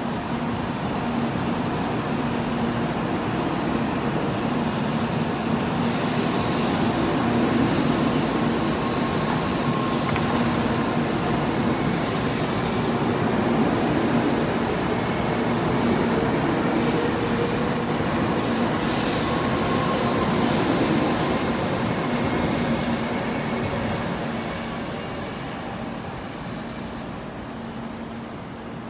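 N700 series Shinkansen train pulling out of the station and gathering speed past the platform, a steady rolling rush of wheels and running gear. It swells over the first several seconds, holds, and fades near the end as the train draws away.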